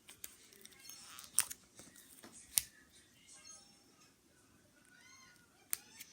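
Slime being squished and poked, giving a series of sharp clicks and pops, three of them loud, with a few faint high squeaks near the end.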